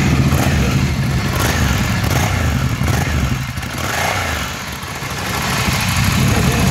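Ducati Scrambler Icon's air-cooled 803 cc L-twin idling steadily through its stock exhaust, dipping slightly in loudness for a moment a little past the middle.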